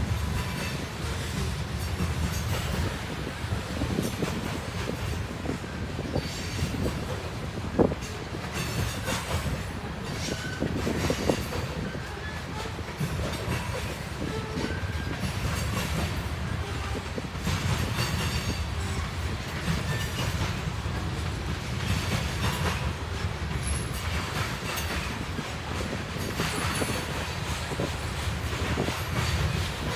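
Freight train of grain cars rolling past: a steady low rumble with wheels clicking over the rail joints, and a couple of sharper knocks about eight and eleven seconds in.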